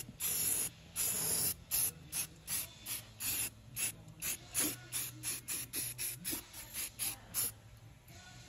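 Aerosol can of Rust-oleum Rust Reformer spraying in short hissing bursts, about two a second, as it coats a car's rusty underbody. The bursts thin out near the end.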